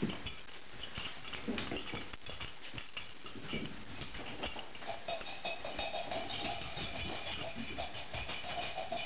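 Metal dog tags on a short-legged Pekingese's collar jingling and clinking against the floor as the dog moves about. The jingling grows thicker about halfway through.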